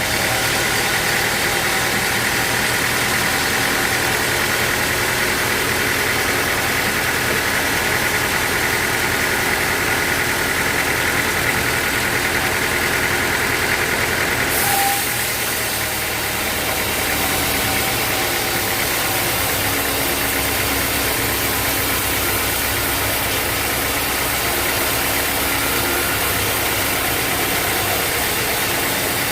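A sawmill's machinery runs steadily and loudly. About halfway through, the higher hiss drops away and the running note changes.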